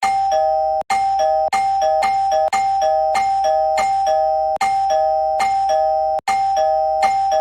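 Two-tone ding-dong doorbell chime rung over and over in quick succession, about two rings a second, each ring cutting in over the last one. This is a doorbell being spam-rung.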